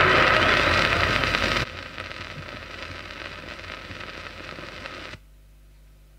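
Hiss and crackle of a 78 rpm record's surface noise as the recorded sound stops abruptly about a second and a half in, leaving quieter groove noise. A little after five seconds this cuts off as the stylus is lifted from the record, leaving only a faint steady hum.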